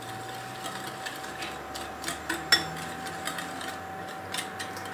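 Wire whisk beating egg-and-milk batter in a glass bowl, its tines clicking irregularly against the glass, with one sharper clink about halfway through.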